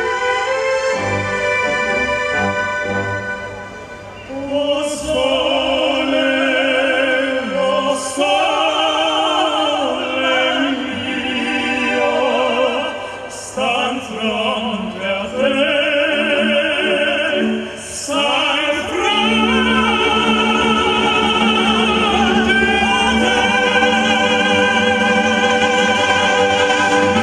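Three operatic tenors singing together with strong vibrato over a symphony orchestra. The voices enter about four seconds in and build to a long held final note over the last several seconds.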